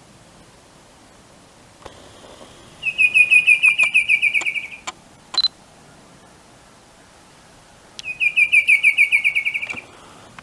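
Bicolored antvireo singing: two rapid trills a few seconds apart, each lasting just under two seconds, a fast run of about eight notes a second that drops slightly in pitch. A single short, higher note falls between them.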